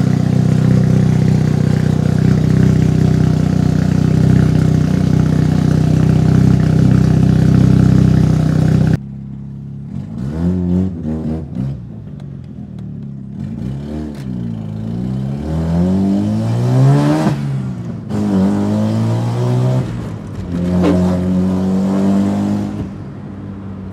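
Mazda RX-7 FD3S's two-rotor rotary engine, its original 13B twin-turbo, running steadily and loudly through a Fujitsubo exhaust, heard at the tailpipe. About nine seconds in, it cuts to the car under way, heard inside the cabin, the engine rising in pitch as it accelerates and dropping back at each gear change, three or four times.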